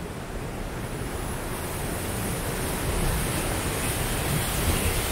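Steady rushing of the Siang river's fast water pouring over boulders, slowly growing louder.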